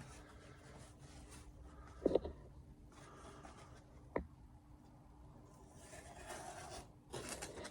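A freshly sharpened Victorinox kitchen knife slicing through paper towel as a sharpness test, its edge taken off a 3000-grit stone without stropping. The cuts are a faint papery hiss near the end, after a soft knock about two seconds in and a sharp click about four seconds in.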